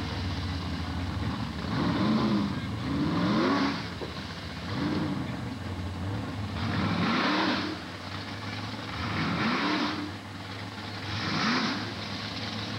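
Drag racing car engine revving in repeated throttle blips, each rise and fall in pitch lasting about a second, six times over a steady low engine drone.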